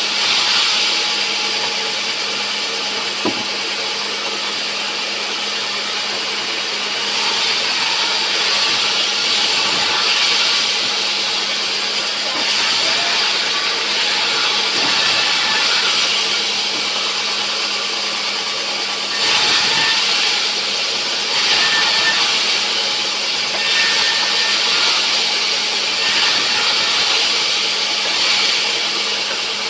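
Sawmill saw running and cutting rubberwood: a steady motor hum under a dense rasping noise that swells in several louder stretches as the blade works through the wood.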